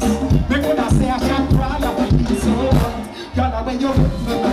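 Live band music with a steady beat and a singer on the microphone through the stage sound system, with a brief lull about three seconds in.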